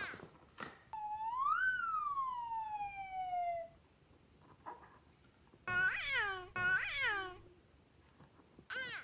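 Cartoon character sound effects: one long high call that rises and then slides down in pitch, then, after a short pause, two short meow-like calls in quick succession.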